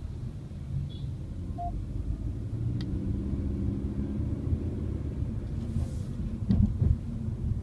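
Steady low road and engine rumble of a Mercedes-Benz car driving in traffic, heard from inside the cabin. A couple of low knocks come about six and a half seconds in.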